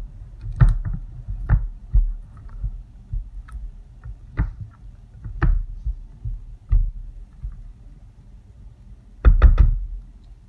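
Spatula scraping and knocking against the inside of a crock pot as cooked soap batter is scraped out, in irregular scrapes and taps, with a quick run of three or four sharper knocks near the end.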